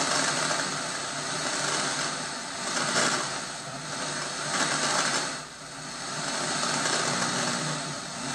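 Analog TV static hiss from the television's speaker, swelling and fading every second or two as a weak UHF analog signal, which the uploader says is affected by the rain, drifts in and out. A faint steady low hum runs underneath.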